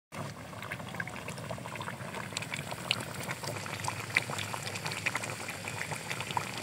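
Curry gravy with whole eggplants bubbling and popping in a kadhai, a dense irregular patter of small pops.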